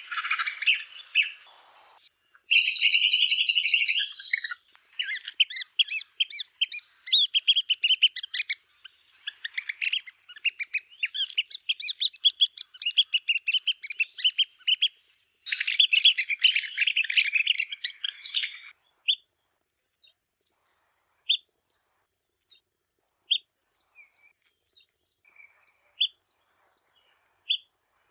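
Red-cockaded woodpecker calls: rapid, high-pitched, squeaky chattering notes that run thick for most of the time, thinning out after about two-thirds of the way to scattered single sharp notes.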